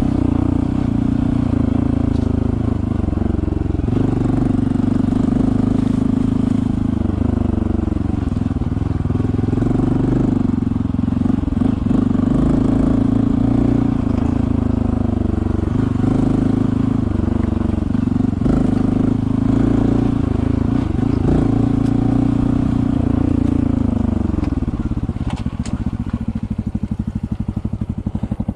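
A Honda CT125's air-cooled 125 cc single-cylinder four-stroke engine runs at low trail speed, its pitch rising and falling with the throttle. About 24 seconds in it drops to a slow, pulsing idle.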